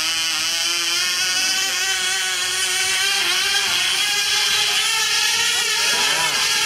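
Tiny Cox Tee Dee .020 glow engines on racing model planes running at full speed with a high buzz, the pitch wavering up and down in a steady rhythm; near the end another engine's pitch sweeps up and down as it passes.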